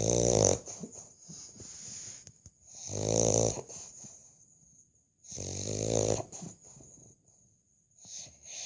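A bulldog snoring in its sleep: three loud buzzing snores, each under a second long and about every three seconds, with a fourth starting near the end and faint breathing between them.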